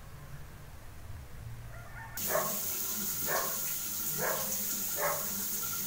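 A low hum gives way, about two seconds in, to the steady hiss of a rain shower head spraying water. Over the water come four short barks, about a second apart.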